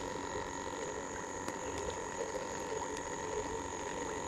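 Steady outdoor chorus of crickets and other insects, a constant high trilling, with a few faint clicks of handling.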